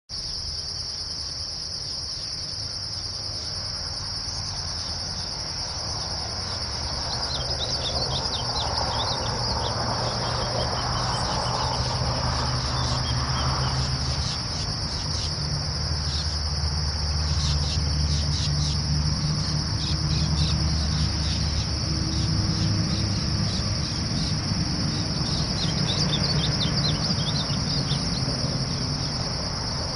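Steady high-pitched insect trill, cricket-like, over a low rumble. Twice, about a quarter of the way in and again near the end, short runs of quick high notes come from a glaucous-blue grosbeak singing.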